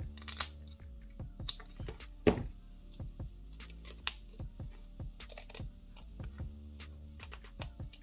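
Small pocket-knife scissors of a Victorinox Compact snipping, a run of sharp clicks, first through a plastic tube and then through thick woven fabric, with one louder snap a little over two seconds in. Background music plays under the snips.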